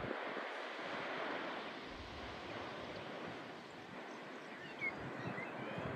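Steady outdoor hiss of wind and distant sea surf, with a few faint high chirps about five seconds in.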